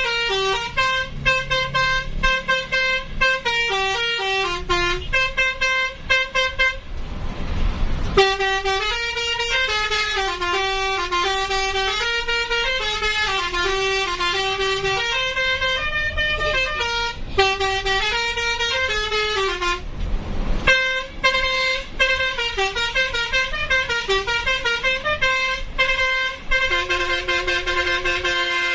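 Basuri 'telolet' multi-tone musical horn playing a tune of stepping notes, with several horn tones sounding together. It breaks off twice for about a second, the gaps filled with a hiss.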